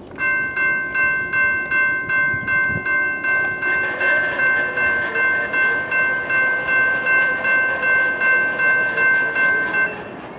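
Railroad grade-crossing warning bell ringing in a steady repeated stroke, about two to three strikes a second, while the crossing gates lower for an approaching train. It stops shortly before the end.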